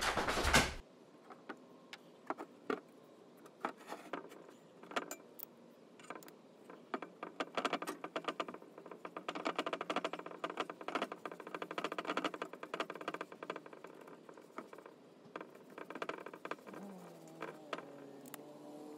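A bristle brush scrubbing and dabbing thick rust-remover gel onto a cast-iron desk leg: rapid, scratchy ticks and rustles of bristles on the iron, busiest in the middle. A faint low hum that bends in pitch comes in near the end.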